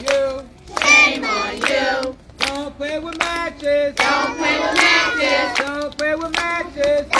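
Young children and adults singing a fire-safety song together in a group, with hand-clapping keeping the beat.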